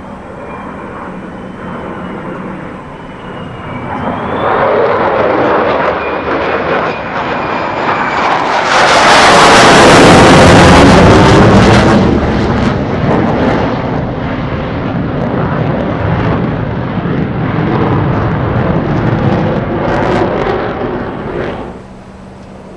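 Military jet making a pass: the engine noise swells over several seconds to a loud peak with a sweeping rush near the middle, eases back, and cuts off sharply near the end.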